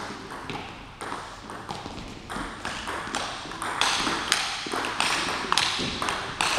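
Table tennis ball clicking on rubber bats and bouncing on the table in a rally, a quick run of sharp pings and taps that echo in the hall.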